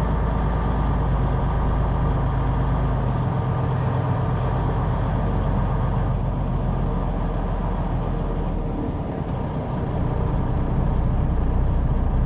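Semi truck's diesel engine running steadily under light load, heard from inside the cab. The engine sound eases off briefly about three quarters of the way through, then picks up again.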